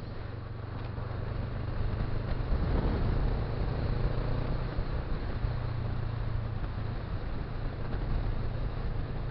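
Motorcycle engine running at a steady cruise under wind and road noise, growing louder for a few seconds about two seconds in.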